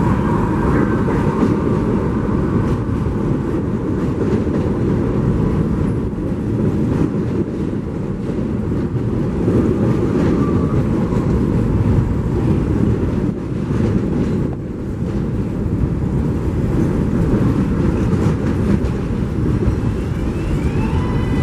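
Subway train running on the elevated tracks: a steady rumble of wheels on rail.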